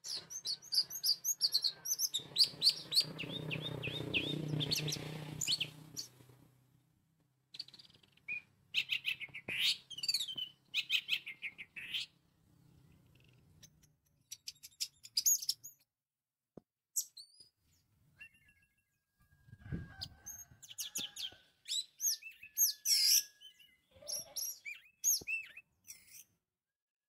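Orange-headed thrush singing: bursts of quick, high whistled and twittering phrases broken by short pauses. A low rumble sits under the first few seconds, and there is one low thump about two-thirds of the way through.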